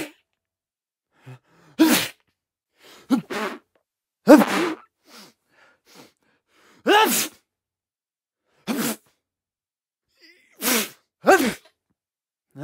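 A man sneezing over and over: about seven separate sneezes, each a short, sharp burst with a voiced cry, a second or two apart with silence between.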